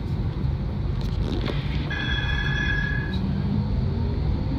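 Flexity tram running, heard from the driver's cab: a steady low rumble, with a steady electronic beep lasting about a second around two seconds in. Near the end a faint whine rises in pitch as the tram gathers speed.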